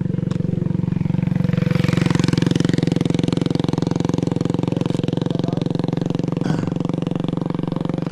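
A small engine running steadily at a constant speed, with a fast, even pulsing beat; it swells a little about two seconds in.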